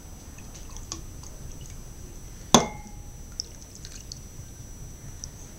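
Lemon juice poured from a measuring cup into a glass mixing bowl of olive oil, with faint splashing and drips. A single sharp clink with a short ring about two and a half seconds in.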